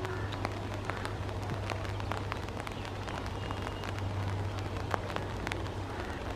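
Heavy rain falling, with irregular drops tapping sharply close by, over a low steady hum.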